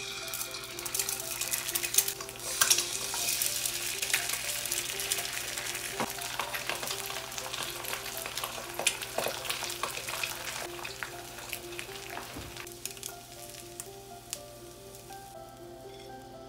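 Eggs frying in a nonstick frying pan, sizzling and crackling with many sharp pops, with chopsticks working the eggs in the pan. The sizzle is loudest a couple of seconds in and dies down over the last few seconds.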